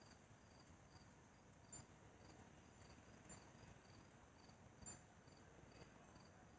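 Faint cricket chirping in near silence, an even high-pitched pulse of about two to three chirps a second, with a couple of soft clicks.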